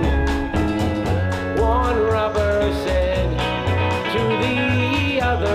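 Background music: a song with a singer over a steady beat and bass line.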